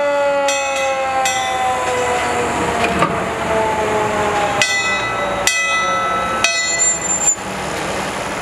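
Fire engine's siren winding down in pitch, then three short, sharp warning signals about a second apart, over the truck's running engine.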